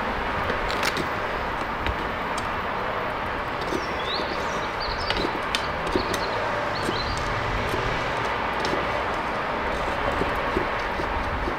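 DevilForge melting furnace's burner running with a steady rushing noise, with scattered small clicks. A few faint high chirps come about four to six seconds in.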